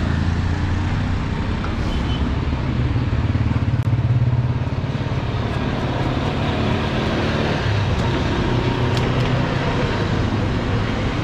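A motor vehicle's engine running close by in street traffic: a steady low hum that grows louder for a moment about four seconds in.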